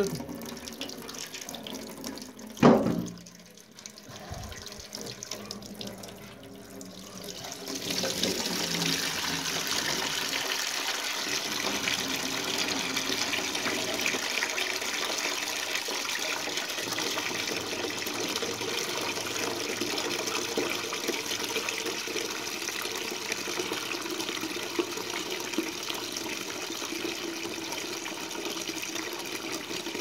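Water draining out of the opened drain-pump filter of a Bosch front-load washer into a plastic bag tied over the opening. This is the standing water of a washer that won't drain (E13 code), let out by hand. A sharp knock comes about three seconds in, and from about eight seconds the flow runs louder and steady.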